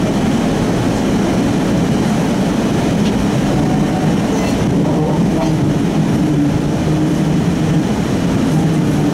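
A CAF Urbos 3 streetcar running on its rails, heard from inside at the cab end. Wheels and motors make a steady rumble, and a low, steady hum joins it about halfway through.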